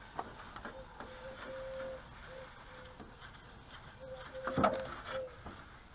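Wet melamine sponge (magic eraser) rubbed over a glossy plastic car grille, squeaking in short, even-pitched notes with the strokes. A louder bump comes about four and a half seconds in.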